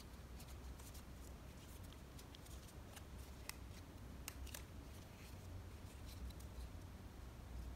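Origami paper being folded and creased by hand: faint, scattered crinkles and ticks of the paper, over a low steady hum.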